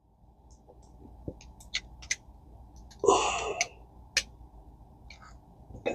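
Small metal parts of a spinning reel clicking and tapping now and then as they are worked into place by hand. A short, louder rush of noise comes about three seconds in.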